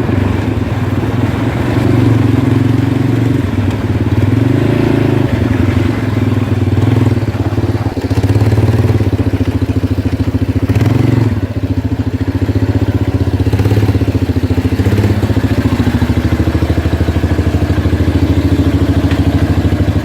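A small engine idling steadily with an even pulse, shut off right at the end.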